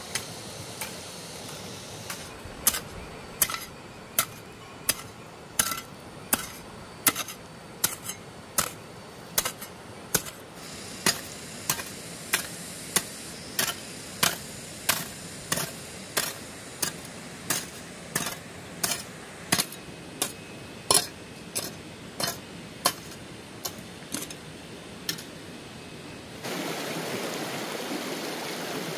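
Sharp, evenly spaced knocks, about three every two seconds, over a faint steady hiss. Near the end it cuts to a steady rush like running water.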